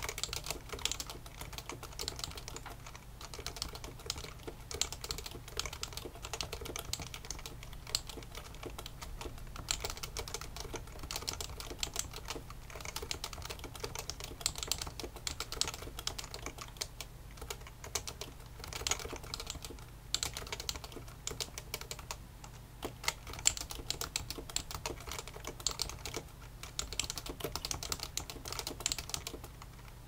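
Fast continuous touch-typing on a Topre Realforce 91UBK keyboard, its undamped variable-weight Topre switches (30–45 g rubber domes under conical springs) making a rapid, unbroken stream of key strokes at about 75 words a minute.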